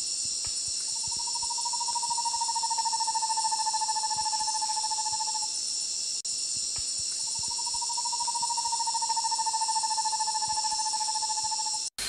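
Roraima screech owl (Megascops roraimae) singing: two long, rapid, even-pitched trills, each lasting about four and a half seconds with a short pause between, over a steady high-pitched insect chorus.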